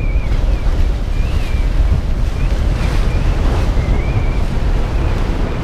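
Wind buffeting the microphone over rushing waves on a sailing yacht in rough seas, a steady loud rumble. A thin, wavering high whistle comes and goes several times.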